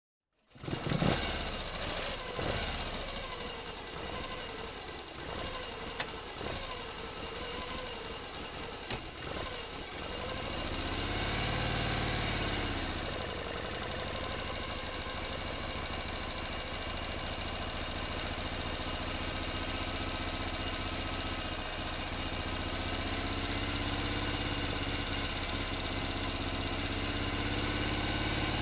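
A toy quad bike's motor runs with a steady, engine-like mechanical whirr as the toy moves over dirt. There are irregular knocks and rattles over the first ten seconds or so, and the pitch rises and falls once about eleven to thirteen seconds in.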